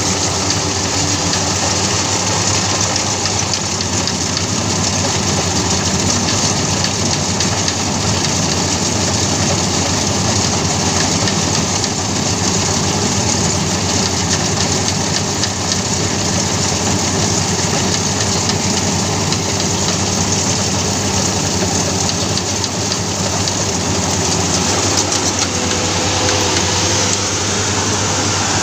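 FMWorld crawler combine harvester running steadily as it moves through a rice paddy: a constant diesel engine drone mixed with mechanical whirring, with no change in pace.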